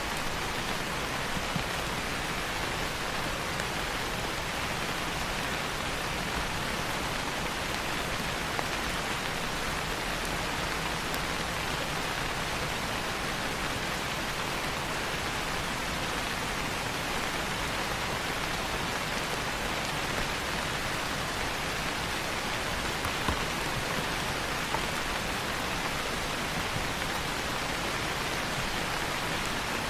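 Steady rain falling, an even hiss that does not change, with a few faint ticks.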